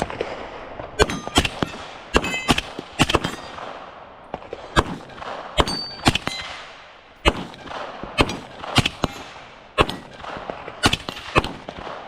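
Pistol and rifle shots fired one at a time at an irregular pace, about fifteen in all, some with a short ring after the report.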